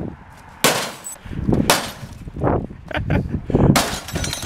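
A broken CRT television set being struck again and again with a garden fork: three hard blows, about a second in, a second later and near the end, with smaller knocks and shards of glass and plastic clattering between them.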